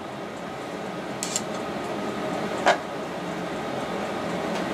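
Light metal clicks about a second in and one louder knock a little past halfway as tools are handled at the toolpost of a Vevor mini metal lathe, over a steady low hum.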